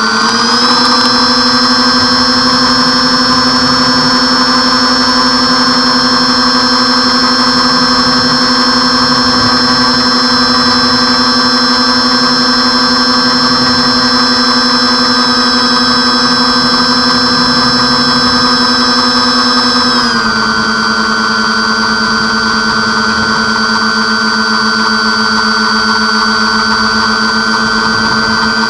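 Twin motors and propellers of an RC airplane heard from a camera on the plane itself: a steady whine that rises as the throttle opens at the start for takeoff, holds level through the climb, then drops slightly in pitch about 20 seconds in as the throttle is eased back.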